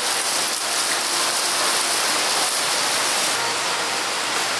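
A steady, even rushing hiss, bright and unbroken, like falling water.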